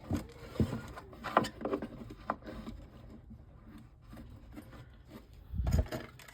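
Handling noise of the speaker's parts being worked on: a few light knocks and clicks, then a louder dull thump near the end.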